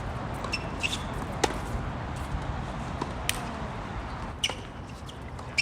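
Tennis balls being struck and bouncing during a rally: a handful of sharp pops at irregular intervals, over a steady low rumble of wind on the microphone.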